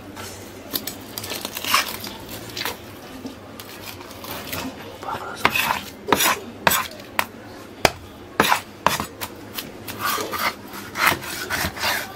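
A large knife scraping over a reef cod and the wooden cutting board, with sharp knocks of the blade on the board, busier in the second half.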